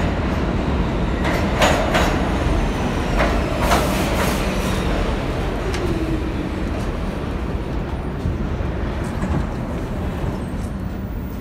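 New York City subway train pulling into the station and slowing to a stop: a heavy rumble of wheels on rail, several sharp clanks in the first few seconds, and a falling motor whine as it slows, the rumble gradually dying down.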